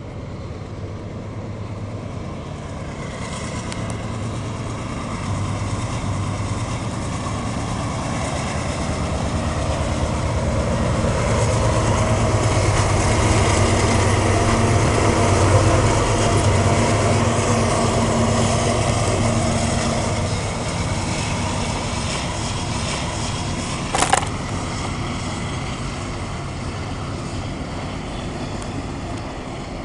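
CSX diesel locomotives passing at the head of an autorack freight train: the engine drone builds to its loudest about halfway through as they go by, then eases into the rolling rumble of the autorack cars. A single sharp click comes a little past two-thirds of the way through.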